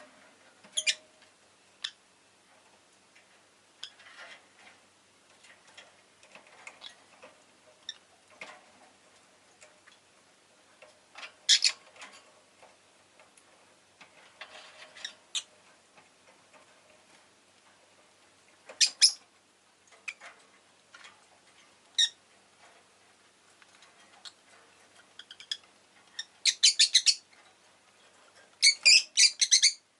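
Rosy-faced lovebird calling: short, sharp chirps every few seconds, then two quick strings of chirps near the end.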